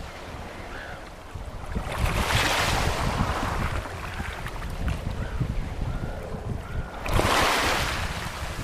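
Small Baltic Sea waves washing in over a pebble beach, surging into a hiss about two seconds in and again, more strongly, near the end, over a steady low rumble.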